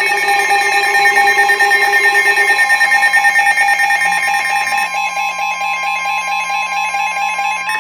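Several NOAA weather radios sounding their alert alarms at once, a loud overlapping mix of steady and pulsing beeps. This is the activation for a newly issued severe thunderstorm warning. The lowest tone stops a few seconds in, and a steady high tone carries on as the other tones thin out.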